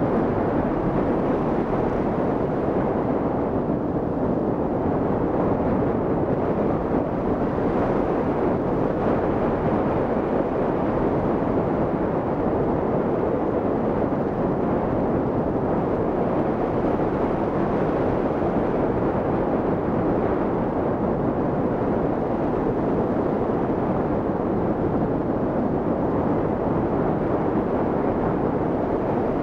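Steady rush of wind across the microphone as the hang glider flies through the air, an even noise that never changes in level.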